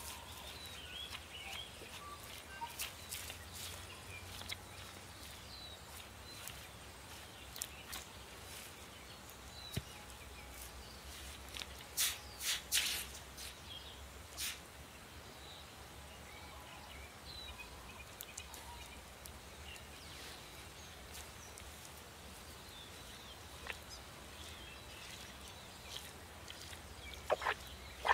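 Scattered soft clicks and scrapes of a plastic credit card scraping slime off a freshwater eel's skin and of the eel being handled, with a few sharper clicks bunched near the middle and again near the end. Faint bird chirps in the background.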